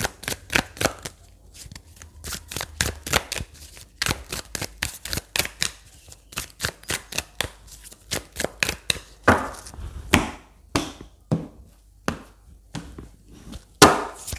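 A tarot deck being shuffled by hand: a quick, irregular run of card slaps and clicks, several a second, with a couple of longer, louder rustles of cards later on.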